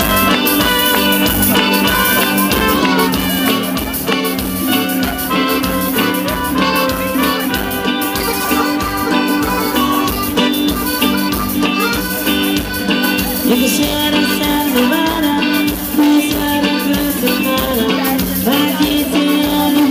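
Music with a steady drum beat, starting suddenly.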